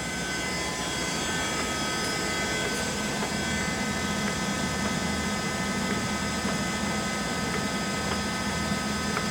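LeBlond 4025NK heavy-duty gap lathe running, its carriage power-feeding toward the chuck on the lead screw with the half nut engaged: a steady machine hum with several high, steady whining tones from the drive and gearing.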